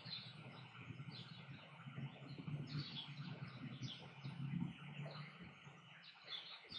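Faint background room noise: a low hum with many short, scattered high-pitched chirps.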